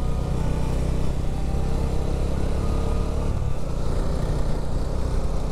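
Bajaj Dominar 250's single-cylinder engine running steadily at road speed, with wind noise on the microphone.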